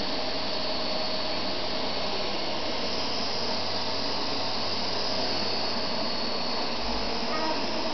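Stick vacuum cleaner running steadily: a constant rush of air with a steady high whine from the motor.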